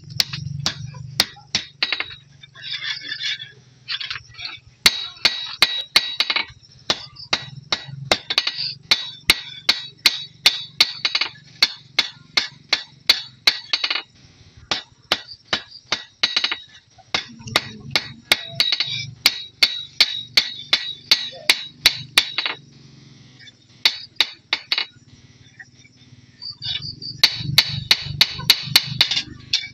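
Hand hammer striking a metal blade on a post anvil: dozens of sharp metallic strikes, each with a brief ring, in runs of about two to three a second. The strikes thin out for a few seconds past the middle, then come thick again near the end.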